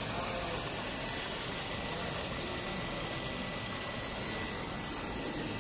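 New electric water pump of a hydroponic system running steadily, an even mechanical noise with a faint steady high tone.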